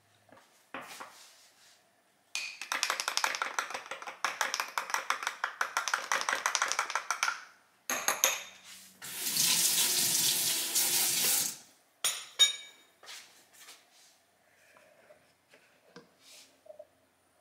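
A metal spoon clinks rapidly against a glass for about five seconds while stirring a powdered greens drink into water. About a second later a kitchen tap runs for a couple of seconds, followed by a few light clinks.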